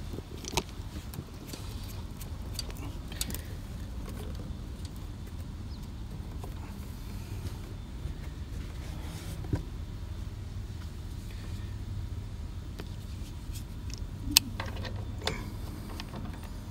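Air-conditioning condensing unit running with a steady low hum, while a refrigerant gauge probe is handled and fitted onto the service valve port, giving a few sharp metal clicks; the loudest click comes near the end.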